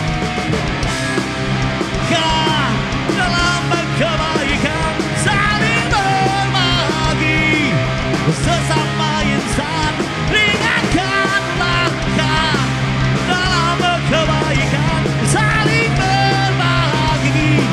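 Live rock band playing loud, with drums and electric guitars under a man singing into a microphone.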